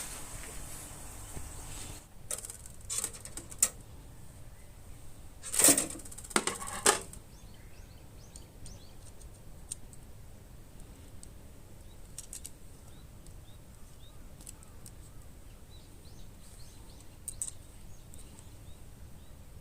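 Light metal clinks and knocks from sheet-metal parts being handled, a few at first and the loudest cluster about six seconds in, then only sparse faint ticks.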